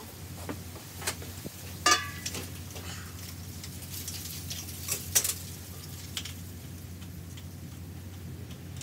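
Scattered clicks, knocks and a metallic clink as tools are picked up and handled on a workbench, over a steady low hum. The two loudest knocks come about two seconds in and about five seconds in.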